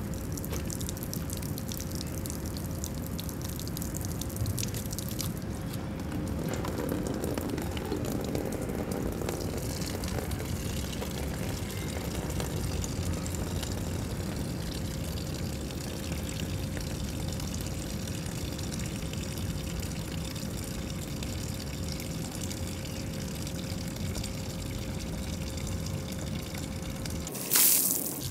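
Water from a cast-iron street drinking fountain running in a steady thin jet, splashing onto the stone drain and into a plastic bucket as it fills. A sudden, brief loud burst near the end.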